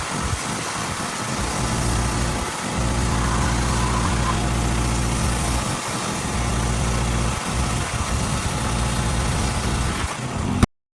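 Pressure washer running steadily: its engine hums under the hiss of the water spray, dipping briefly a few times, then cuts off abruptly near the end.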